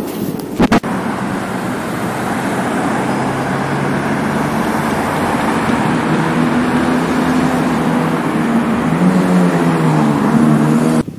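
Busy city road traffic: cars and buses passing, a steady rush of tyre and engine noise. A low engine drone comes up about halfway and grows louder toward the end. A short, sharp double click less than a second in.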